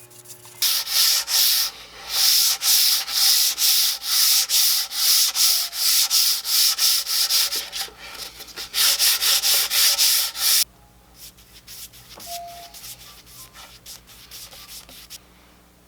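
Back-and-forth hand strokes rubbing over the wooden tabletop, about two a second, stopping abruptly about ten seconds in; after that only a few faint small sounds.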